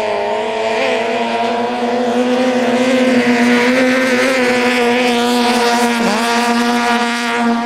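Toyota 5K four-cylinder engines of longtail racing boats running flat out side by side, a loud, steady high-pitched drone held at high revs. About six seconds in, the pitch dips briefly and then recovers.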